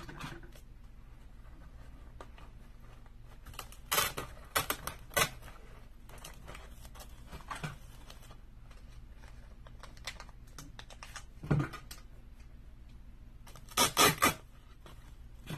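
Artificial fall leaves and their stems being handled and pushed into a styrofoam base: short, scattered bursts of rustling and scraping, with a cluster about four seconds in and another near the end.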